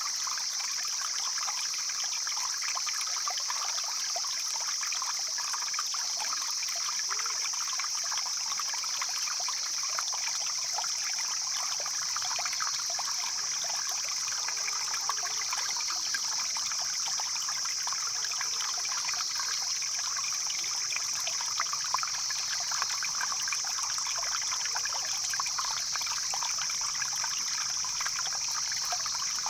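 A mountain stream flowing steadily, water babbling and trickling over rocks, with a steady high-pitched hiss above it.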